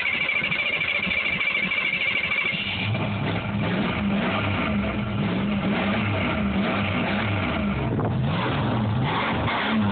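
A 1977 Chevrolet K10 pickup's engine cranked over by the starter for about three seconds, then catching and running with its revs rising and falling as the gas pedal is pumped. It is being restarted after dying from fuel starvation on its seldom-used second tank.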